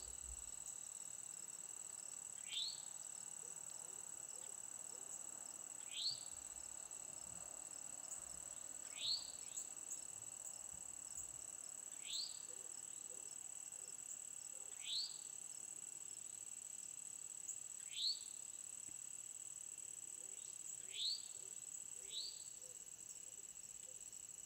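Insects keep up a steady high drone. A bird's short, rising call repeats over it about every three seconds, eight times in all.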